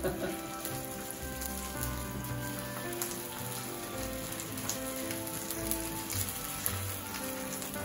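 Takoyaki batter sizzling in the oiled wells of an electric takoyaki plate as the balls cook, a steady rain-like hiss. Soft background music with slow held notes plays along.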